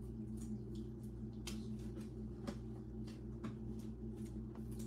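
Quiet room tone: a steady low hum with a few faint, scattered clicks.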